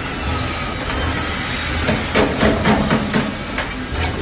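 Steel roller chain of a bucket elevator clicking and rattling as it is handled on its sprocket, with a quick run of sharp metallic clicks about halfway through. Under it, a steady workshop hiss and low hum.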